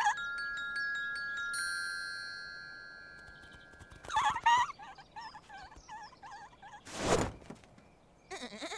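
A chime-like ringing tone, with higher tones joining it, rings and fades away over about four seconds. Then come a few short squeaky warbles and a brief thud about seven seconds in.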